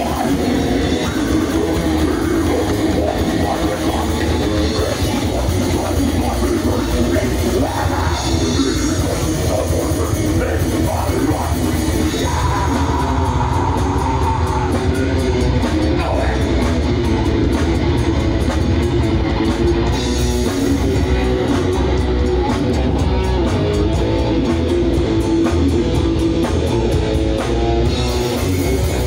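Heavy metal band playing live: distorted electric guitar, bass guitar and drum kit, with a vocalist singing into a microphone.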